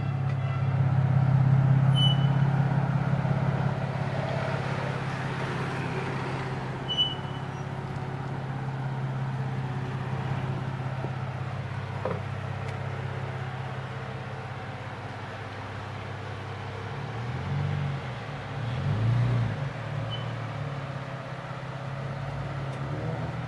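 Car engine and road noise while driving: a steady low engine note, louder in the first few seconds, with a couple of brief swells in engine speed near the end.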